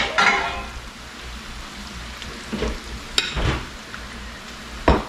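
Hot oil frying steadily in a skillet. Louder bursts of sizzling come at the start and again about three seconds in, as spoonfuls of hush-puppy batter drop in. A sharp knock sounds near the end.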